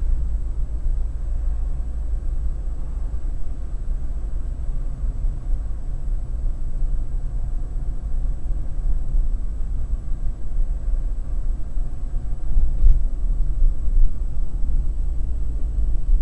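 Steady low rumble of a car being driven, the engine and road noise heard from inside the cabin.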